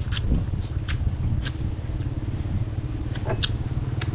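A steady low rumble runs throughout, with a few sharp clicks and smacks of someone chewing food up close.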